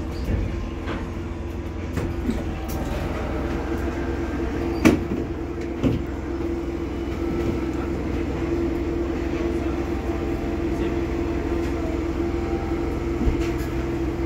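Interior of a Waggon-Union ST10 tram pulling away and running along the track: a steady low rumble with a steady hum over it, and two sharp knocks about five and six seconds in.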